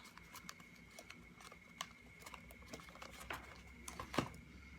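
Scattered light clicks and taps of yo-yos being handled and set down, the loudest a single knock about four seconds in.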